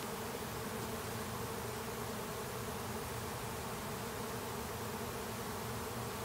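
A swarm of honey bees buzzing in a steady, unbroken hum, with many bees in flight around the cluster.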